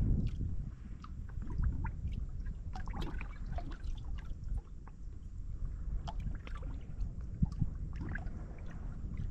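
Water lapping and sloshing against a boat hull, with small irregular splashes and ticks over a steady low rumble.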